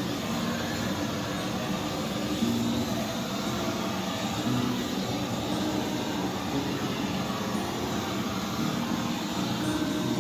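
Acetylene gas torch flame burning with a steady rushing hiss, heating heat-shrink sleeves on cable lug terminations.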